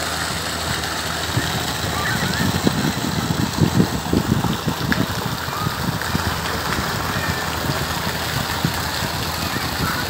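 Outdoor park background noise: a steady wash of sound with wind buffeting the phone's microphone in rumbling gusts for a few seconds in the middle.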